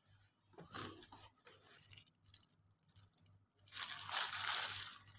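Plastic packaging rustling and crinkling as it is handled. There are short rustles early on, then a louder stretch of crumpling about three and a half seconds in as a plastic bag is squeezed.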